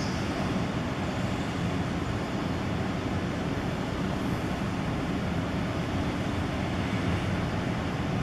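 Steady low rumble and hiss of street traffic, even throughout with no distinct events.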